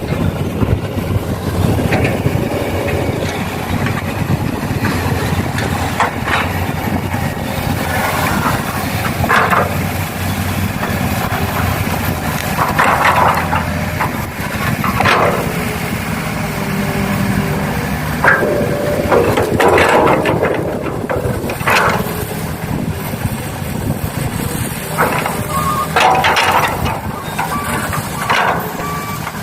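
Radio-controlled model excavators running with a steady engine hum, broken by about ten short bursts of soil being scooped and dropped. A truck's reversing beeper starts near the end.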